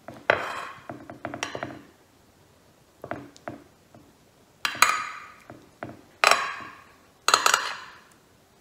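Metal spoon scraping and clinking against a glass baking dish while spreading thick pasta sauce, in about six separate strokes with short pauses between.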